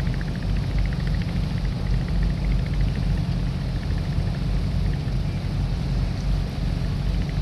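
Boat engine running steadily: a low, even drone under a constant rushing noise.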